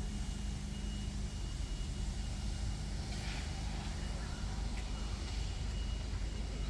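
A steady low rumble with a faint, even hum running through it.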